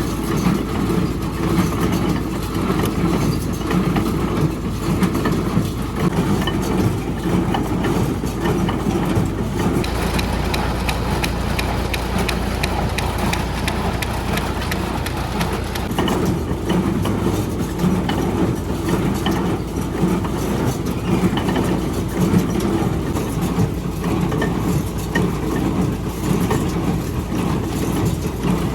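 A tractor engine running steadily while it drives a Welger AP51 square baler, which is working and forming a bale.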